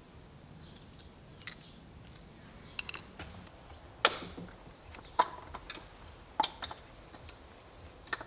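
Scattered light metallic clicks and knocks, about ten in all, the sharpest about four seconds in: hand tools and small metal parts being handled during ignition work on the engine.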